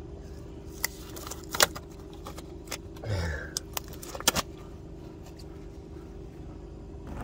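Disposable gloves being peeled off the hands: sharp snaps and rustles close to the microphone, over a steady low hum.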